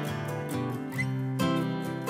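Background music led by a strummed acoustic guitar, playing a melody with evenly spaced strums.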